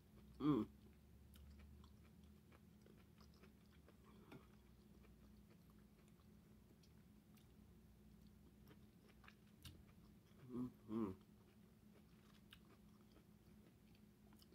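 A person chewing a mouthful of lobster and asparagus, faintly, with many small wet mouth clicks. A short hum of the voice sounds about half a second in, and two more come about ten and a half and eleven seconds in, over a faint steady low hum.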